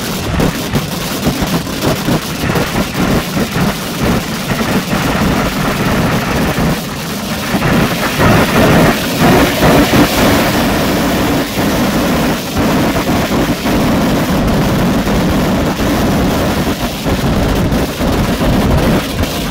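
Kerala temple-festival fireworks (vedikkettu): a dense barrage of firecracker explosions going off so fast they run together into one continuous din of bangs and crackling, getting louder about eight seconds in.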